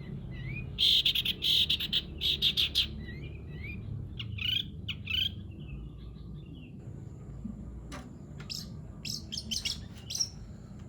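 Long-tailed shrike singing rapid bursts of harsh, sparrow-like chirps. The chirps are loudest and densest in the first three seconds, then come scattered, with another short run of calls near the end.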